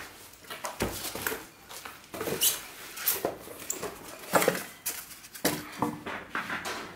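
Polystyrene foam packing squeaking and rubbing as it is pulled out of a cardboard box, with the cardboard flaps rustling: a string of irregular scrapes, knocks and short squeaks.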